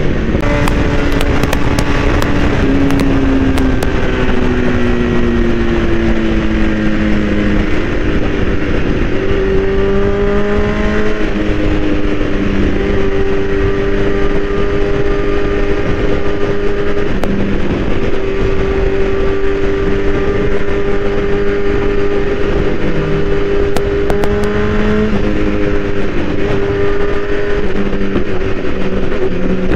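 BMW S1000RR inline-four engine running at highway speed, heard from the rider's seat with wind rush. Its note sinks gradually over the first several seconds, then rises in a couple of steps and holds steady.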